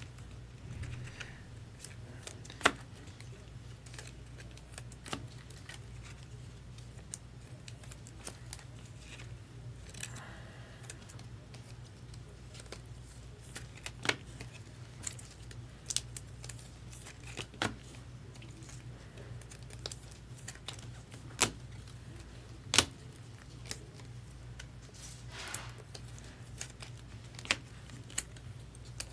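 Trading cards being handled on a table: scattered light clicks and taps, a few sharper ones, and a couple of brief soft rustles, over a low steady hum.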